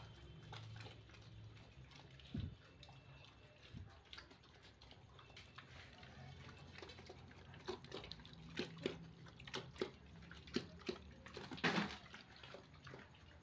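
Piglets eating a wet rice mash from a concrete trough: irregular wet smacking and slurping, busier in the second half, with one louder burst near the end.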